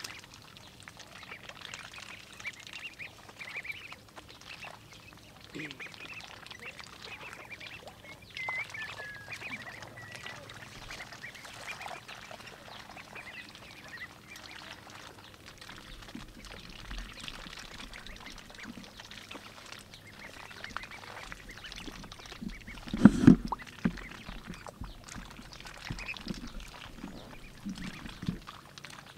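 Flock of young white ducks calling as they swim and dabble in shallow water, short high calls and quacks scattered throughout. A brief loud bump about two-thirds of the way through.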